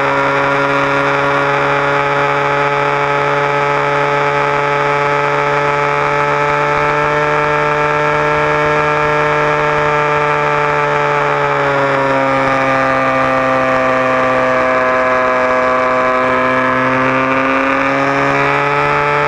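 Model airplane's motor running steadily, heard from a camera on the wing. Its pitch drops about two-thirds of the way through as the throttle comes back, then climbs again near the end.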